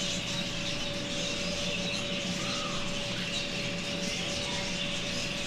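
Steady indoor background noise with a constant hum and a few faint, short chirps.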